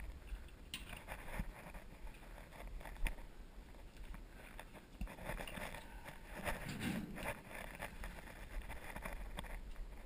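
Hands working on a galvanized sheet-metal furnace smoke pipe: a few sharp clicks and knocks, with a longer scraping rustle about six to seven seconds in, over a faint low hum.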